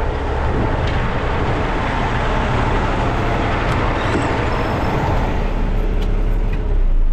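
2007 Kenworth dump truck's diesel engine running steadily, with a loud, even rushing noise over it, swelling slightly near the end.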